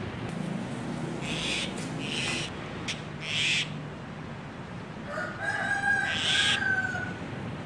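A rooster crowing, one long call of nearly two seconds starting about five seconds in, with a few short hissing rushes of noise before and during it.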